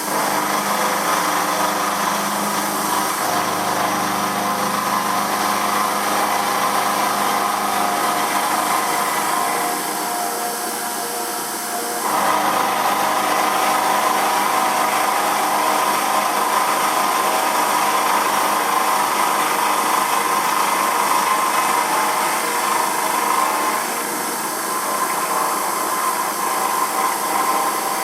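Emco F1 CNC milling machine running, its spindle turning a 12 mm four-flute carbide cutter as it rough-mills the top of a cast aluminium engine pan. The sound dips about ten seconds in and comes back louder about twelve seconds in.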